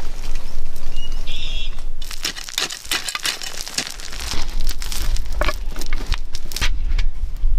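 Loose red soil and gravel crunching and scraping as a pit is dug by hand, in irregular strokes. A low rumble comes in about four seconds in.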